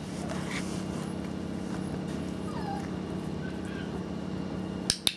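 A 4.5-week-old puppy giving a few faint, short whimpers, then two sharp clicks close together near the end from a handheld dog-training clicker marking the behaviour.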